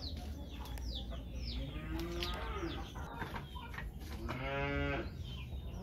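A goat bleating twice: a short wavering bleat about two seconds in, then a longer, louder one near the end. Birds chirp repeatedly in the background.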